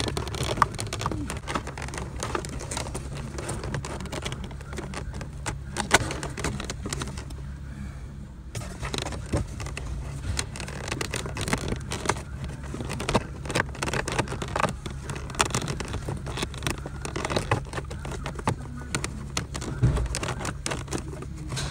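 A new pleated paper cabin filter being pushed and worked into the plastic pollen-filter housing of a Corsa D, making irregular scraping, rustling and clicking, with a brief lull about seven seconds in. A steady low hum of workshop noise runs underneath.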